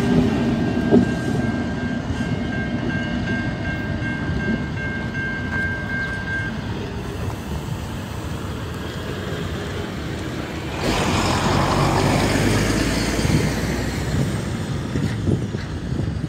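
Diesel locomotives running light engine pass close and draw away, their engine and wheel rumble slowly fading. A steady high whine lasts for the first six seconds or so. From about eleven seconds, wind buffets the microphone.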